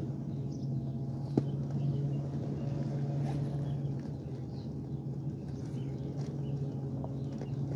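Wood-chip mulch rustling and crunching as it is spread by hand and stepped on, over a steady low mechanical hum. A sharp click about a second and a half in, and a few faint bird chirps.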